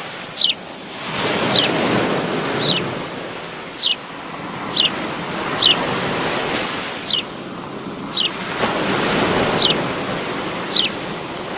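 Ocean surf washing on a beach, rising and falling in slow swells. A short, high, falling chirp repeats about once a second over it.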